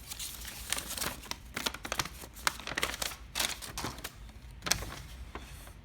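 Paper rustling and crinkling in irregular sharp crackles as a small printed instruction booklet is handled and its pages turned.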